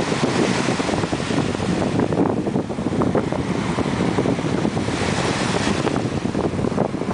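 Wind buffeting the microphone over small waves breaking and washing up the shore, a steady rushing noise throughout.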